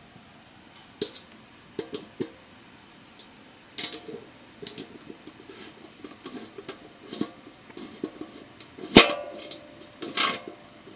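Handling of a small metal grill's parts: scattered knocks, clicks and rattles. A loud metallic clank about nine seconds in rings on for a moment.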